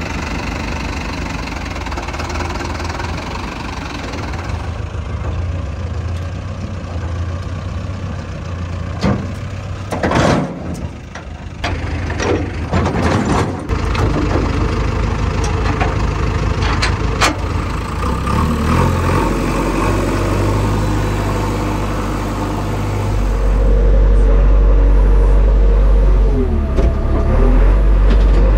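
Mahindra Arjun Novo 605 DI diesel tractor engine running steadily, broken about ten to thirteen seconds in by several sharp metal clanks at the trailer hitch and chain. Later a deeper, louder engine note takes over, with a whine that dips and rises near the end.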